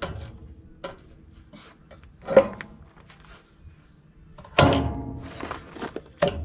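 Steel frame piece knocking and clanking against the steel frame rails of a Chevy P30 chassis as it is shifted into position: a handful of sharp metal knocks, each ringing on briefly, the sharpest a little over two seconds in.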